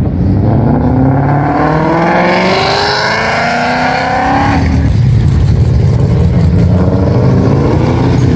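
A car accelerating hard, its engine note rising steadily for about four seconds before cutting off abruptly. After that, car engines run at lower revs as cars pull away.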